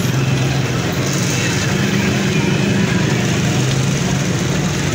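French fries sizzling in a large wok of hot oil, over the steady hum of the blower fan under the stove that drives up the fire's heat.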